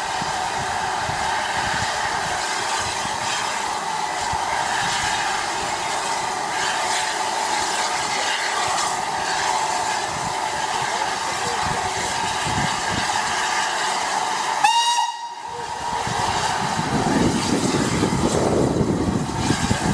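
Southern Railway U class 2-6-0 steam locomotive No. 1638 sends out a steady hiss of steam with a high steady tone for about fifteen seconds. The sound cuts off sharply with a short whistle-like note. After a brief lull, the exhaust and open cylinder drain cocks hiss and chuff as the engine starts away.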